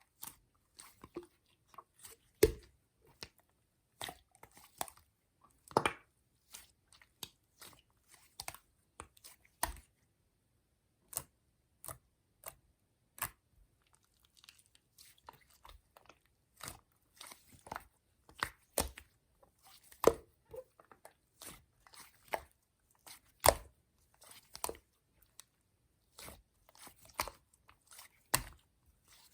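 Green clay slime being squished and pressed by hand, giving irregular sharp clicks and pops, some much louder than others.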